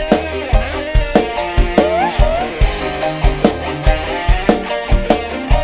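Live dangdut band playing an instrumental passage with no singing: a drum kit keeps a steady beat of bass drum and snare strokes under a melody line that bends up and down in pitch.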